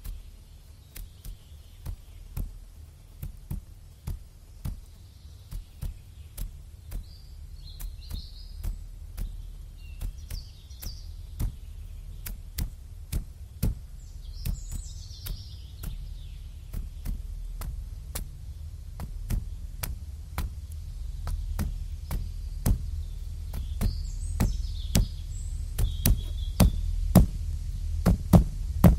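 Sharp clicks or knocks, about two a second, over a low rumble that slowly grows louder. A few faint, high, distant calls, typical of seagulls, come in now and then.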